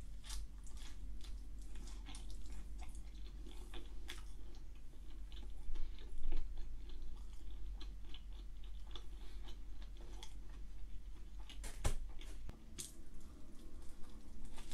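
Close-up chewing and biting of a slice of pepperoni pan pizza, with many small wet mouth clicks and smacks. A low steady hum runs underneath.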